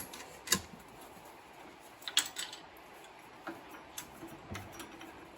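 A few scattered light clicks and taps of tools and metal parts being handled, with no drill running.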